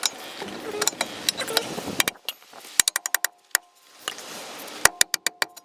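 Metal clicking and clinking as a Saab 900 outer tie rod end is spun off its threads turn by turn: a scraping stretch, then two quick runs of sharp clicks, some with a short metallic ring.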